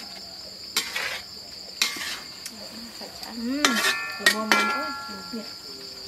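Metal spatula scraping and clanging against a metal wok as food is stirred, with a few ringing strikes about four seconds in. Crickets chirp steadily throughout.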